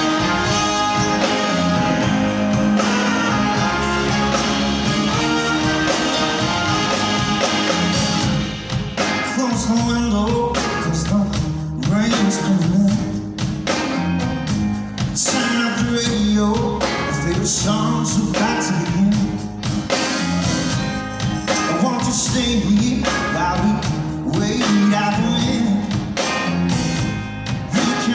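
Live rock band playing an instrumental opening. Sustained chords ring for the first eight seconds or so, then the full band comes in with a steady beat.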